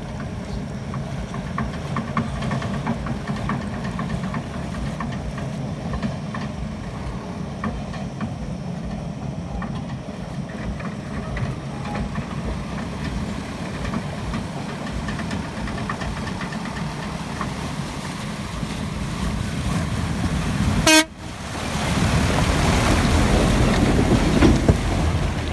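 Heavy diesel machinery engine running steadily with a low rumble. About 21 seconds in, the sound breaks off abruptly and comes back louder and noisier.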